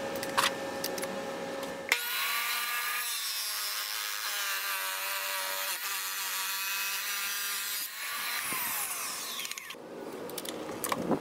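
A 10-inch wet tile saw with a Beast porcelain diamond blade cuts through hard porcelain tile: a steady grinding whine that starts suddenly about two seconds in. Near the end the blade winds down with a falling pitch, and metallic clicks follow as the blade is handled on the arbor.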